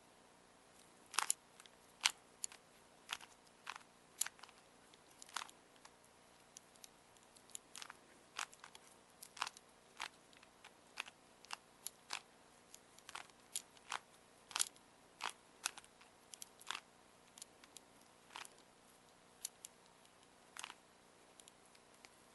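Rubik's Cube being turned by hand during a solve: short, sharp plastic clicks as the layers snap round, coming irregularly at about one or two a second.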